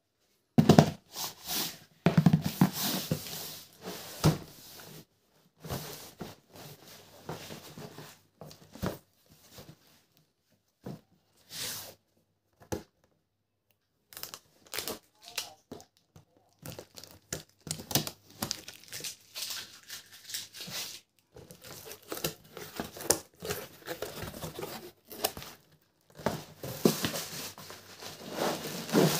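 Packing tape being torn off a cardboard carton, with the cardboard flaps and plastic wrapping handled: irregular bursts of tearing, scraping and crinkling, broken by short pauses.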